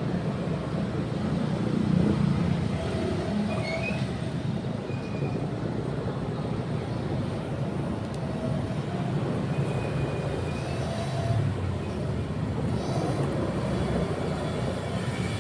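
A motorcycle on the move: steady engine and road noise heard from the rider's position, a continuous low rumble that never stops.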